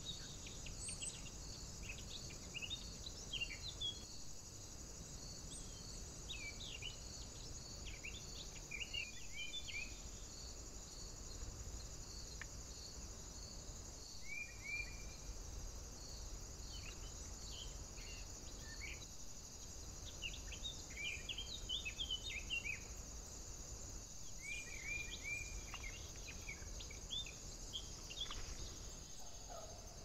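Woodland birdsong: small birds singing short, varied phrases on and off, over a steady high hiss and a regular high chirp repeating about every two-thirds of a second that fades out after the first twenty seconds or so.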